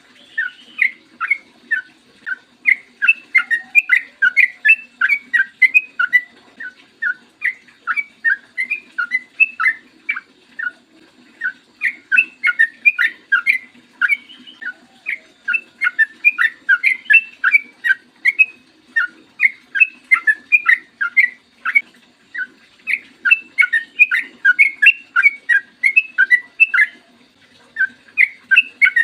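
Yellow-vented bulbul (trucukan) singing: rapid chattering phrases of short bubbly notes, repeated one after another with brief pauses. This is the long 'ropel' song that keepers play to prompt other trucukan to sing. A faint steady low hum runs underneath.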